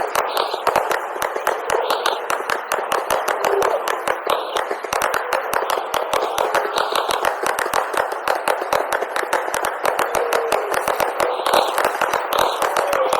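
Fireworks going off in quick succession, a dense run of sharp crackling pops many times a second over a steady wash of noise.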